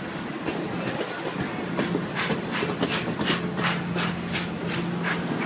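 Union Pacific passenger cars rolling past on the rails, their wheels clicking over the rail joints; a quick run of clicks, about five a second, starts about two seconds in, over a rolling rumble and a steady low hum.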